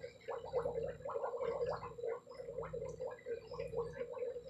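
Water in a caiman's tank gurgling and bubbling steadily at a low level, with short, quickly repeating bubbly blips.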